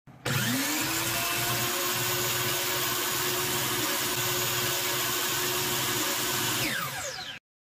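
DeWalt DWS779 sliding compound miter saw's motor switched on, winding up to full speed within about a second and then running steadily with the blade spinning free. Near the end it starts to wind down with a falling whine, and the sound cuts off abruptly.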